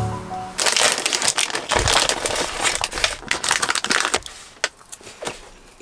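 Crinkly plastic snack packet being handled and opened, crackling for about three and a half seconds, then a few separate crinkles near the end.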